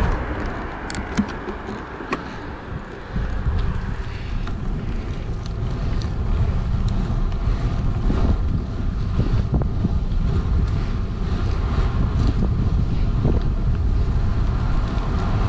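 Wind rushing over the microphone of a camera on a moving bicycle, with road and tyre noise. A van passes close by at the very start, a few light clicks come about a second in, and the wind rumble grows stronger from about three seconds in.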